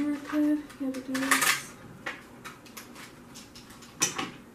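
Hard plastic clicking and clattering as a small toy and its packaging are handled, loudest around a second and a half in and again near the end, with faint ticks between. A short run of level tones, stepping in pitch, sounds over the first second or so.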